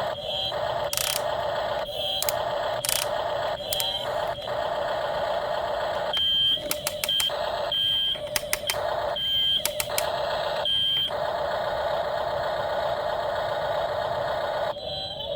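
A toy RC car's small electric motor whines steadily, cutting out and back in several times, with short high beeps in between.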